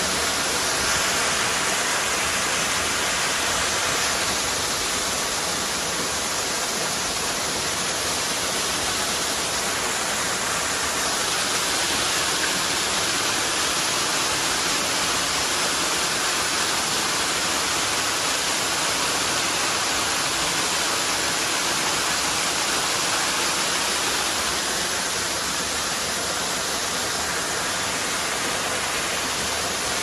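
Waterfall heard from right under its falling water: a steady, full hiss of water pouring and splashing, with no break.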